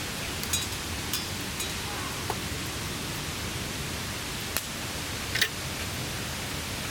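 Steady hiss of rain falling on a camp tarp, with a few sharp pops or drips standing out, the loudest about five and a half seconds in.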